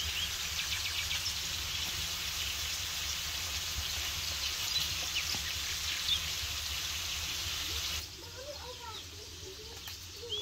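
A steady crackling hiss that cuts off suddenly about eight seconds in, after which small birds chirp several times.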